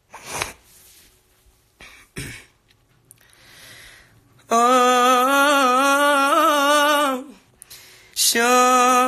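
A young man singing unaccompanied into a phone microphone: two long held notes with a wavering, ornamented pitch, the second starting about a second after the first ends. Before them come two short throat-clearing noises.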